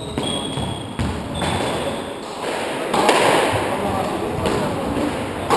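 Squash rally: the ball struck by rackets and hitting the court walls, a string of sharp knocks about a second apart, with short squeaks of shoes on the wooden floor in the first two seconds.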